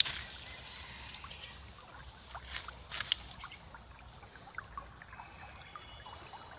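Small knife shaving a thin wooden stick by hand: a few short scraping strokes, the two loudest about two and a half and three seconds in, followed by light scattered ticks.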